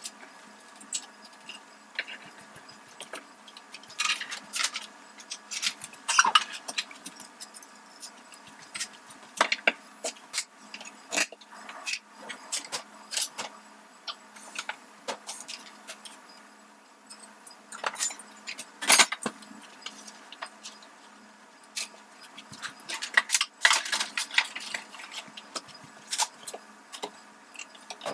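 Kitchen things being handled on a countertop: irregular knocks, clinks and clatters of wooden cutting boards, dishes and utensils being moved and set down, in clusters with short pauses between.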